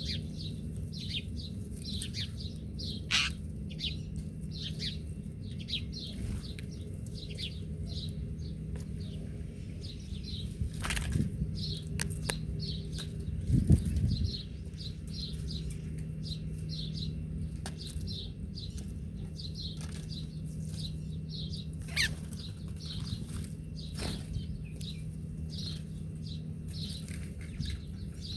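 A group of small birds chirping continuously with quick, high, repeated chirps, over a steady low hum. A few louder low thumps come around the middle.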